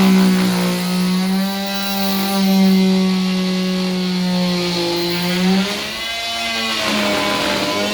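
Electric power saw running and cutting, a steady pitched motor whine whose pitch sags and recovers under load and eases off briefly about six seconds in.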